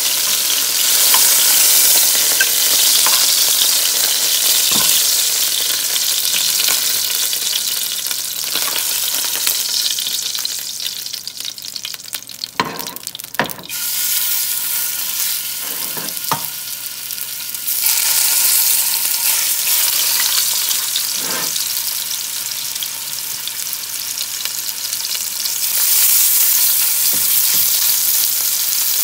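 Chicken tenders sizzling in hot oil in a nonstick pan, with a few sharp clicks of metal tongs as pieces are lifted out and laid in. The sizzle dips for a few seconds near the middle, then rises again as the raw next batch goes into the oil.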